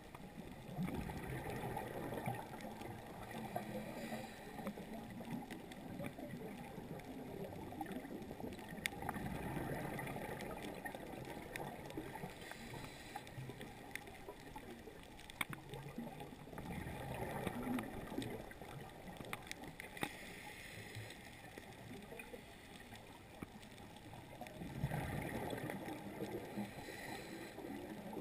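Scuba diver breathing underwater through a regulator: a hiss on each inhale and a gurgling rush of exhaled bubbles, swelling and fading every few seconds. A few sharp clicks stand out.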